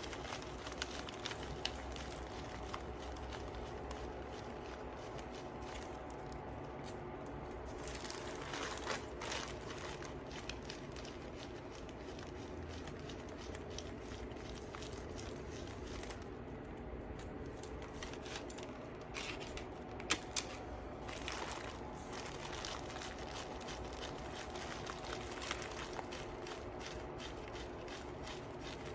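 Small, faint clicks and rustles of beads being scooped up on a needle and strung onto thread, scattered irregularly over a low, steady hum.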